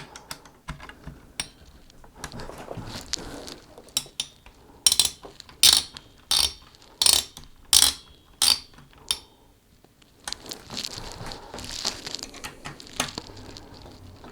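Screwdriver work on a CPU cooler's mounting screws: small metallic clicks and rattles, with a run of about eight sharp clicks between five and nine seconds in, then a spell of scraping and rattling.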